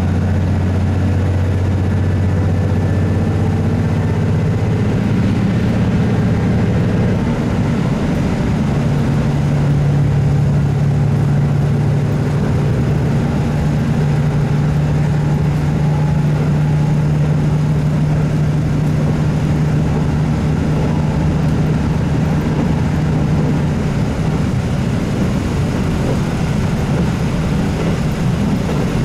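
KiHa 75 diesel railcar running between stations: its Cummins diesel engine drones over a steady rumble of wheels on rail. About eight seconds in, the engine note steps up in pitch, and it fades out around twenty-four seconds in.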